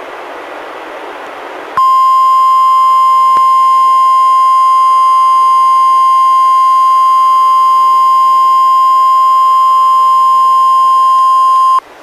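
NOAA Weather Radio 1050 Hz warning alarm tone sent as the weekly test of the alarm: one loud, steady, unbroken beep that starts abruptly about two seconds in, lasts about ten seconds and cuts off sharply. Before it comes a short stretch of radio hiss.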